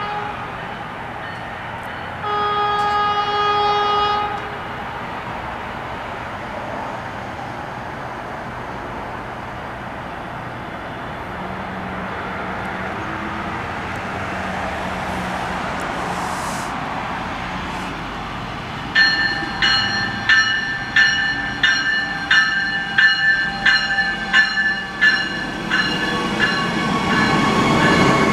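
Stadler GTW diesel light-rail car approaching a station: one horn blast of about two seconds, then a steady rumble that grows louder, then a bell ringing about twice a second for some eight seconds as the car pulls in alongside the platform.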